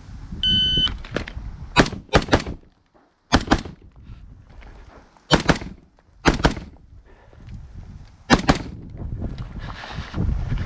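A shot timer's electronic start beep, then a semi-automatic rifle firing about eleven shots. The shots come mostly in quick pairs, with a second or two between pairs.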